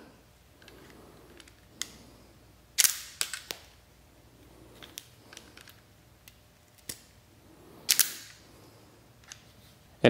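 Self-adjusting spring-loaded wire stripper clicking as it is worked on insulated wire, with two sharp snaps about three and eight seconds in as the jaws close and spring back, and a few lighter ticks between.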